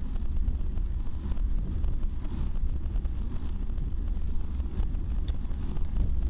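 Wind buffeting the microphone of a camera moving at cycling speed: a steady low rumble with a few faint clicks on top.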